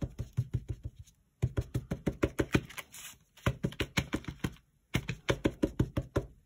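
A plastic-cased ink pad tapped rapidly and repeatedly against cardstock on a craft mat, about seven light taps a second in several quick runs with short pauses between. This is direct-to-paper inking, dabbing the pad over and over to build the colour darker.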